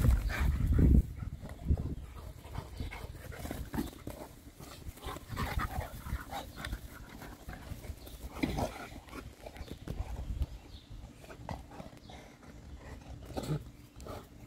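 Two large mastiff-type dogs, a Boerboel and a Serbian Defense Dog, chasing and play-wrestling on grass: scuffling, paw thuds and dog vocal sounds. Loudest in the first second as they rush close past, then scattered shorter scuffs and thumps.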